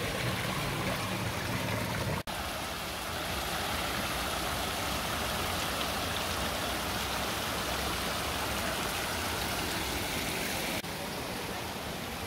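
Steady rush of water from a tiered stone fountain splashing down into its pool, broken by a sudden cut about two seconds in.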